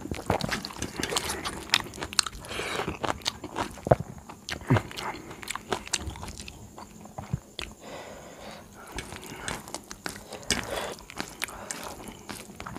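Close-miked eating sounds: chewing, and fingers mixing rice on a steel plate, with many small wet clicks and scrapes.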